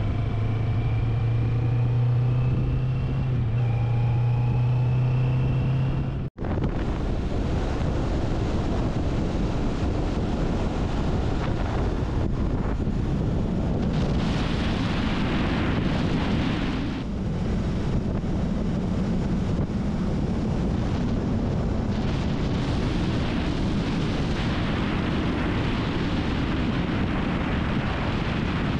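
Kawasaki Vulcan S 650 parallel-twin engine pulling along a slip road, its note rising steadily. After an abrupt cut about six seconds in, heavy wind rushes over the handlebar-mounted microphone at highway cruising speed, with the engine droning underneath.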